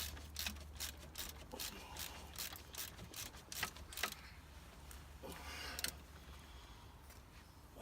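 Socket ratchet clicking in a quick run of strokes, about three or four clicks a second, while the water pump bolts are done up; the clicking stops about four seconds in. A short scrape follows.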